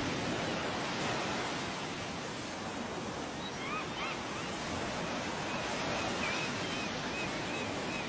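Steady rushing noise like sea surf, with a few faint, short high chirps about halfway through.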